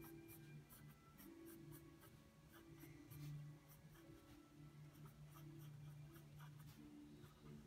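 Faint scratching of a mechanical pencil on paper, in short quick strokes at about three a second.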